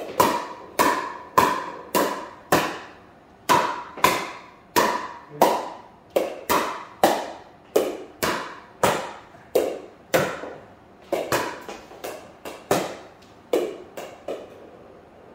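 Pickleball paddle striking a plastic pickleball in rapid repeated volleys: sharp hits about every half second, each with a short ring, stopping shortly before the end.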